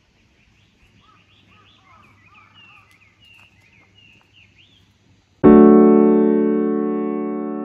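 Faint birdsong of short chirps and whistles over quiet open air, then about five and a half seconds in a loud piano chord is struck and slowly fades as background music.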